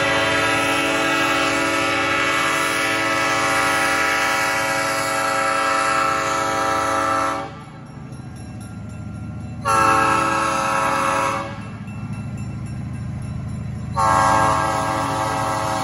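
Diesel switcher locomotive's air horn sounding one long blast, a short blast about two seconds later, then another long blast starting near the end, over the steady low rumble of the two locomotives' diesel engines as the freight train approaches and passes.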